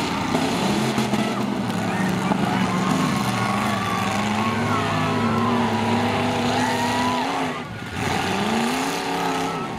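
Several demolition-derby pickup truck engines revving hard and easing off, their pitch rising and falling.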